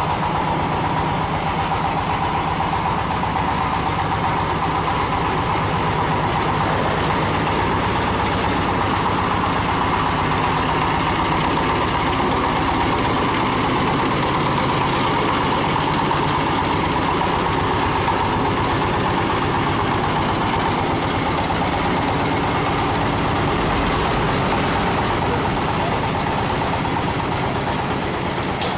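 The 24 HP diesel engine of a truck-mounted mobile band saw running steadily, with an even, constant hum and no change in speed.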